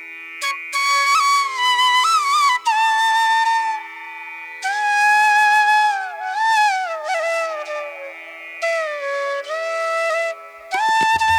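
Background music: a flute plays a slow, ornamented melody in phrases with short pauses, over a steady drone. Percussion comes in near the end.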